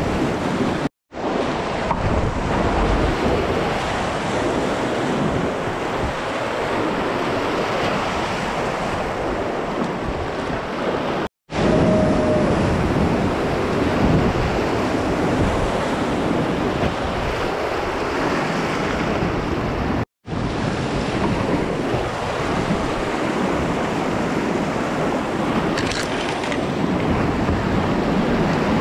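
Rushing whitewater of a rocky creek rapid, close to the microphone, as a kayak runs down through it. The sound cuts out for a moment three times, about one, eleven and twenty seconds in.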